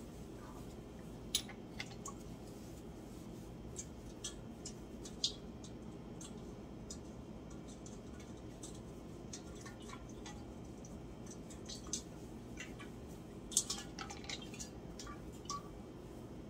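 Stainless steel tea kettle being wiped with a cloth and turned in the hands: soft rubbing with scattered light clicks and taps, the sharpest about five seconds in and again near the end, over a steady low hum.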